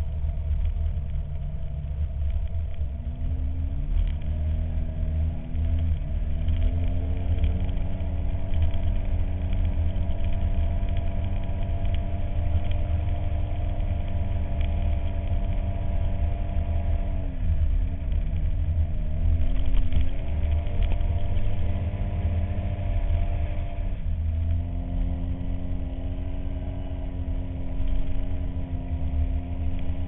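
Polaris RZR's 800 twin-cylinder engine running under way. Its pitch climbs a few seconds in, holds, dips briefly and picks up again past the middle, then settles lower near the end, over a heavy low rumble.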